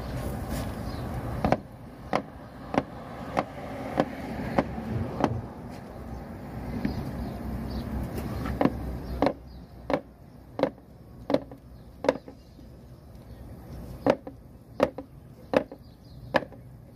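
A hand tool chopping into the trench floor in steady strokes, about one and a half a second, in runs with short pauses. A steady low rumble underlies the first half and drops away about nine seconds in.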